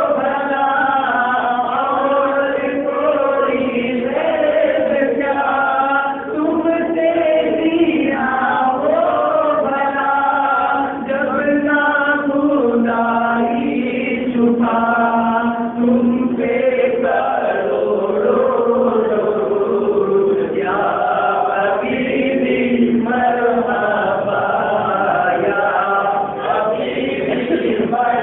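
Unaccompanied Urdu naat sung by a man into a microphone in long, held melodic lines, with other men's voices singing along.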